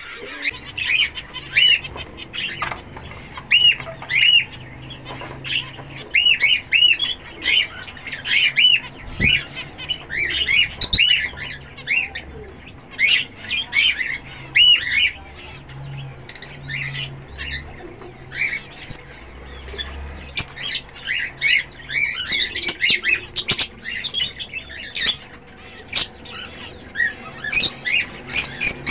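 Several zebra finches calling: short calls in quick succession, often overlapping.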